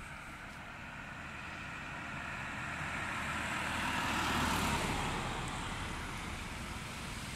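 A car passing close by: tyre and engine noise swell to a peak about halfway through and then fade.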